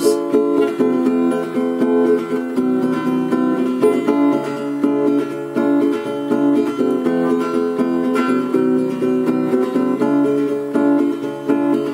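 Solo acoustic guitar played in an instrumental break, with no singing.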